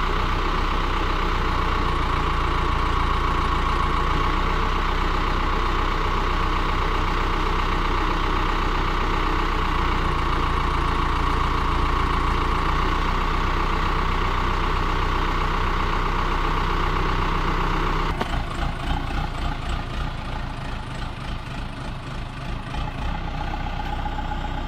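Case backhoe loader's diesel engine running steadily at close range. About 18 seconds in the sound changes abruptly and turns uneven and pulsing.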